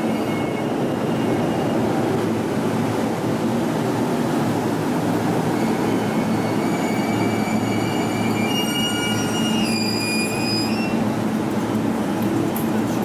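E233-1000 series electric commuter train rolling in along the platform and slowing to a stop, a steady rumble of wheels and motors. Several high squealing tones come and go over the second half as it brakes.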